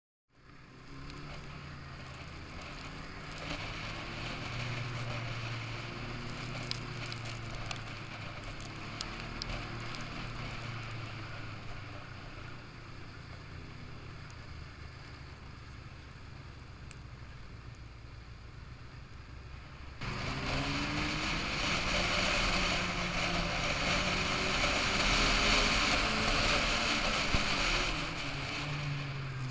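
Snowmobile engine running while the sled rides along a snow trail, its pitch slowly rising and falling with the throttle, over track and wind noise. It steps up louder about two-thirds of the way through.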